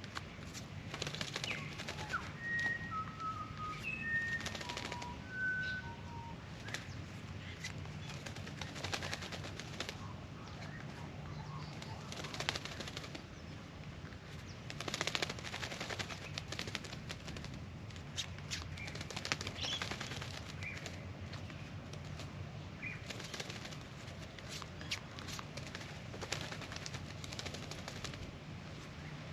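Australian magpie preening at a birdbath: repeated short rustles and flutters of shaken feathers and wings. A few short, high bird chirps in the first few seconds.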